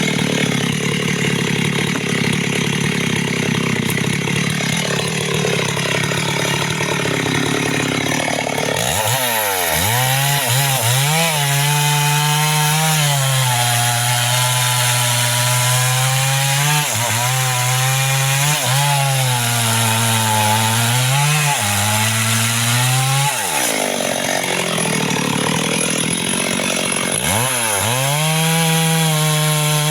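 Two-stroke chainsaw cutting into a mahogany tree at high revs. The engine note drops each time the chain bogs in the cut and climbs again as it frees up, several times over. From about nine seconds in the note is clearer.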